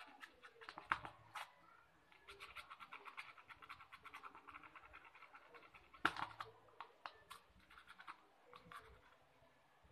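Domestic cat grooming itself, licking its fur and paw: a rapid run of faint wet ticks, several a second, through the middle, with a few sharper clicks and the loudest one about six seconds in.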